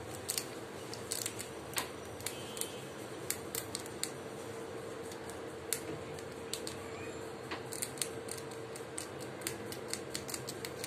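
Pet rat gnawing hard food with its sharp front teeth: a run of crisp, irregular crunching clicks, a few a second, over a steady hum.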